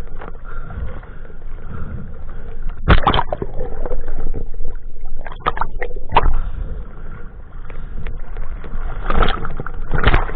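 Sea water sloshing and splashing right against the microphone, with muffled gurgling as it goes under the surface. There are sudden loud splashes about three seconds in, a cluster around five to six seconds, and more near the end.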